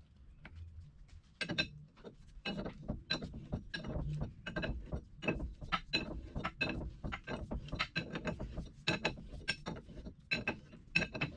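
Irregular sharp metal clicks and ticks, a few a second, from hand tools working on the gearbox of an oilfield pumping unit (pump jack).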